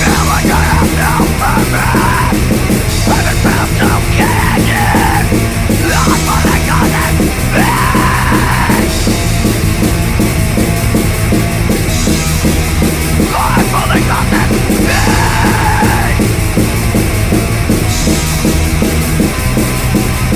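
Loud, aggressive punk/metal music: distorted guitar, bass and drums, with short bursts of yelled vocals every few seconds.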